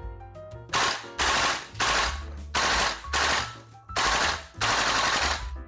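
Gas blowback airsoft rifle (VFC M16A2 Carbine / M727, fitted with a Crusader steel bolt) firing a string of short rapid bursts in quick succession, about seven in all. Background music plays beneath.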